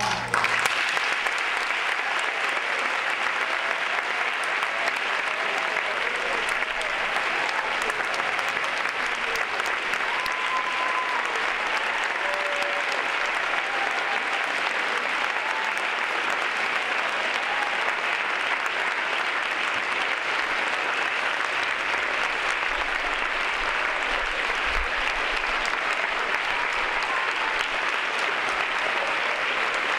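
An audience applauding, a dense, even clapping that starts at once and holds steady.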